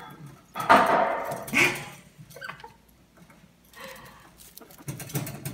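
Guinea pig squeaking while it begs for food, reared up against the wire cage bars, with light clicks from the bars near the end.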